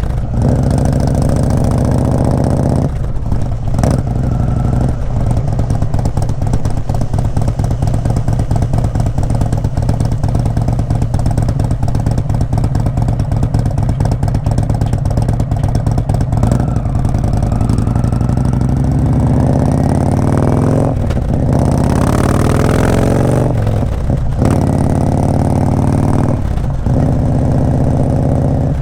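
Indian Springfield's V-twin running through a Freedom Performance aftermarket exhaust, loud and under load. The revs climb and drop several times, with short breaks in the note in between.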